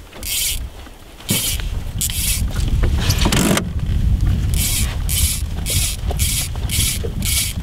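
Sink-tip fly line being stripped in by hand, a series of short zipping strokes of line sliding through the rod guides and fingers, coming about two a second in the second half. Wind rumbles on the microphone underneath.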